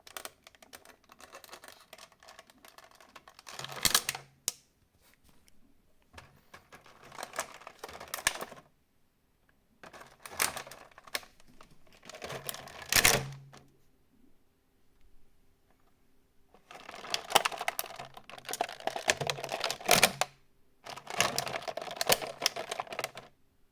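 Eggs clicking and clattering against a refrigerator's hard plastic egg holder as they are pushed in and don't fit. The clatter comes in several bursts of a few seconds each, with short pauses between them, and a faint steady hum underneath.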